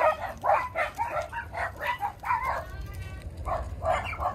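Dogs barking in a quick run of short, high yaps, several a second, with a brief pause about three seconds in.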